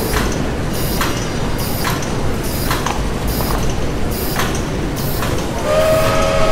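Industrial machinery ambience: a steady mechanical din with a hissing stroke repeating a little more than once a second. A steady whistling tone starts near the end.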